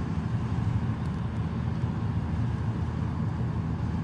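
Steady low rumble of a car's tyres and engine heard from inside the cabin while driving at highway speed, even and unbroken.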